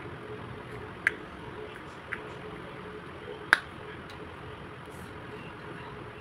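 Three sharp clicks of plastic from handling the Toyota Innova key remote and its casing, the last the loudest, over a steady low hum.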